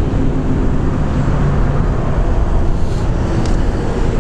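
S&S 124-cubic-inch fuel-injected V-twin of a Big Dog trike idling with a steady low rumble.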